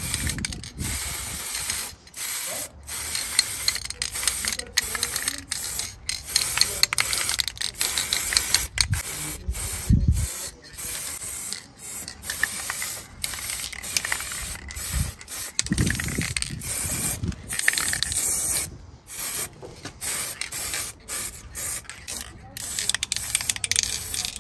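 Aerosol spray-paint can hissing in repeated bursts with short breaks between them, spraying paint onto a car's brake caliper.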